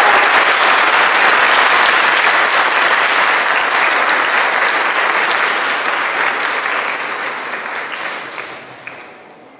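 Audience applauding a graduate just proclaimed. The clapping is loud at first, then thins out and dies away near the end.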